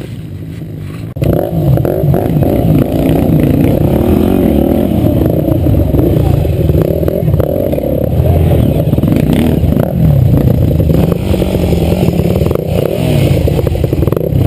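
Trail motorcycle's engine running loud and revving up and down over rough ground, with rattling from the bike. It gets much louder suddenly about a second in.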